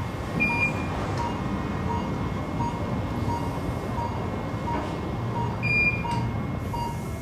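Hospital ambience: an electronic beep repeats steadily, about three every two seconds, over a low, steady background rumble. Two short, higher beeps come in, one about half a second in and one after about five and a half seconds.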